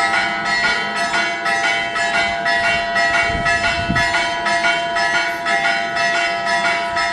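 Church bells ringing, struck in a quick, even pattern of about three strokes a second.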